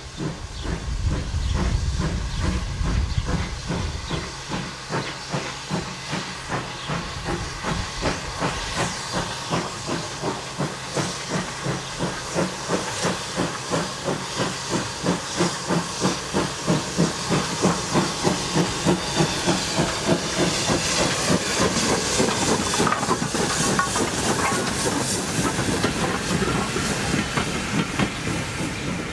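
Steam locomotive pulling away with a train and passing close by. Its exhaust chuffs come at a steady beat of about two a second over a constant steam hiss, growing louder through the second half as the engine and its coaches go past.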